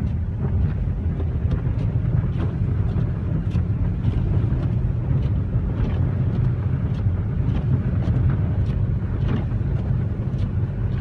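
Infiniti G37x coupe driving on a snow-covered road: a steady low engine and road rumble with faint, scattered ticks.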